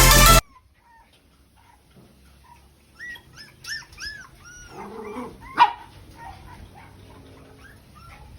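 A dog whimpering and yipping in a run of short, high, rising-and-falling whines, starting about three seconds in, with a sharp click about halfway through.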